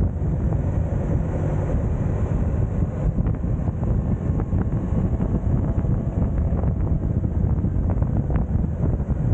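Wind buffeting the camera microphone on a moving motorcycle, a steady rush with the motorcycle's engine running underneath at a steady pitch.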